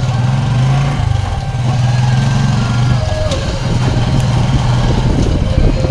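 Motorcycle engine of a tricycle running steadily. The engine note falls away briefly about one second in and again about three seconds in.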